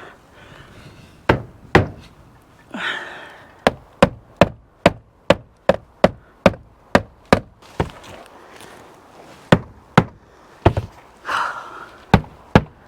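Hammer knocking roof tacks back into a shed roof: sharp strikes, a long run of about ten at two to three a second in the middle, with a few single and paired strikes before and after.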